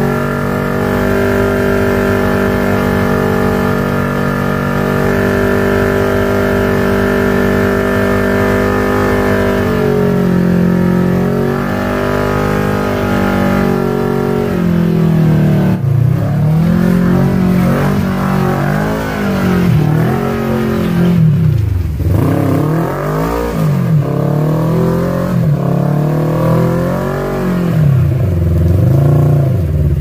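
Side-by-side UTV engine under load on a rock climb, held at steady revs for about the first fifteen seconds, then revving up and down again and again as the throttle is worked.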